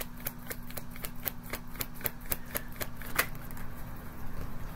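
A deck of tarot cards being shuffled by hand: rapid, regular card taps at about six a second that stop a little after three seconds in.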